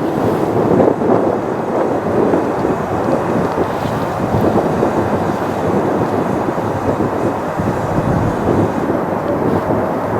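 Wind buffeting the microphone: a loud, steady noisy rumble with no tone in it.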